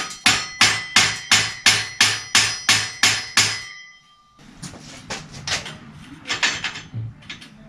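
Hammer blows on steel, about three a second, eleven ringing strikes, driving a bicycle crank's cotter pin home. After about a second's pause come lighter, irregular knocks and taps.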